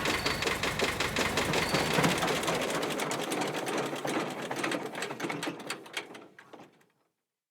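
Fast, even mechanical ticking clatter that fades away over about seven seconds and ends in silence.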